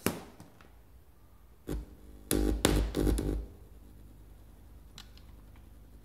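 A sharp click, then a short burst and about a second of loud crackling buzz from a JBL Boombox speaker as the 3.5 mm jack on its aux cable is worked out of a USB-C headphone adapter.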